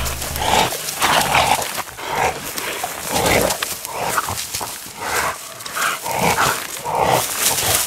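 Pig-hunting dogs barking at a caught wild boar, short barks coming one or two a second.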